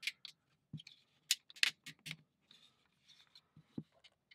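Thin plywood parts of a Ugears wooden mechanical safe model being handled and fitted together by hand: irregular light clicks and taps with a little scraping of wood on wood.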